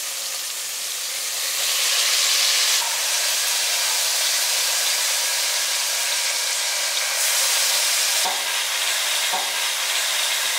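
Oil sizzling steadily in a steel pressure cooker, where onions, tomatoes and whole spices are frying. The sizzle gets louder about a second and a half in as raw chicken pieces go into the hot oil, and there are two light knocks near the end.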